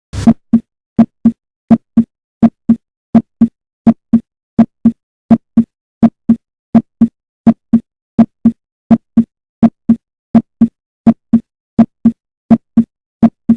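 Recorded human heartbeat: a steady lub-dub, pairs of short dull thumps about 80 times a minute, the first and second heart sounds made by the closing heart valves.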